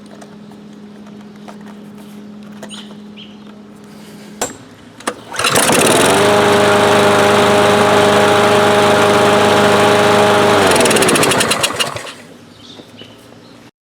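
A Powersmart lawn mower's overhead-valve engine starts about five seconds in, running again after its carburetor was cleaned. It runs at a steady speed for about five seconds, then is shut off and winds down.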